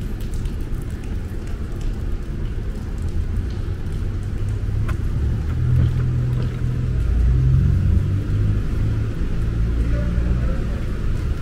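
Steady low rumble of a car driving along a wet street, heard from inside the moving vehicle. A low droning hum grows louder about halfway through.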